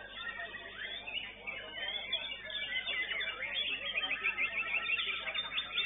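White-rumped shama (murai batu) singing a rapid, varied song of quick chirps and rising and falling whistled phrases, getting busier and louder about two seconds in.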